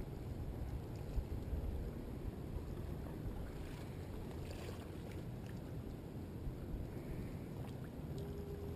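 Steady low rumble of surf and wind, with no distinct event standing out.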